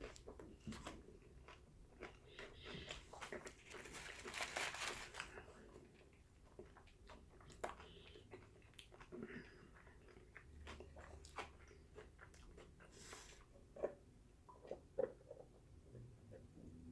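Faint chewing and mouth sounds of a person eating a tuna sub, with scattered small clicks and a louder crunchy stretch about three to five seconds in.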